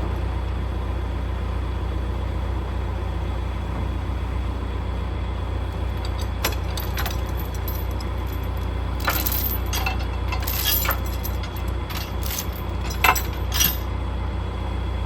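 Truck engine running with a steady low drone. From about six seconds in to near the end comes a scatter of light metallic clinks and jingles.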